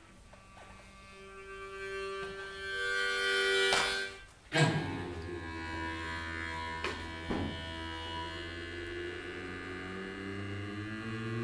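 Jaw harp buzzing over a steady low drone, its overtones shifting to pick out a melody. It is struck sharply about four and a half seconds in, and twice more lightly around seven seconds.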